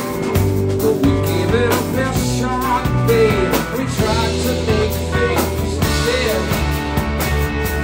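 Live rock band playing: guitar with wavering, bent notes over a steady bass line and drums.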